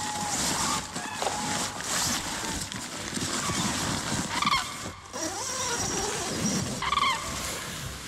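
Nylon tent fabric and a foam camping mat rustling and crumpling as they are handled close to the microphone inside a small tent, with a few short high chirps.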